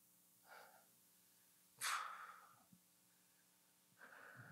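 Near silence broken by breaths into a handheld microphone, the clearest about two seconds in, with a faint steady electrical hum underneath.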